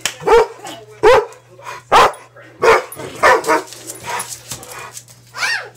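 Dog barking repeatedly, about seven short barks roughly a second apart, the last one drawn out and rising then falling, while it plays monkey in the middle with a thrown ball.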